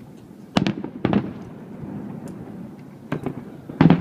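Fireworks shells bursting: four sharp bangs, one about half a second in, another about a second in, and two more near the end, the last the loudest, each trailing off in a short rumble.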